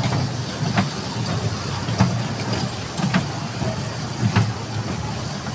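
Electric kiddie train ride running round its small oval track: a steady low rumble, with a short clack about every second as the wheels pass over the track joints.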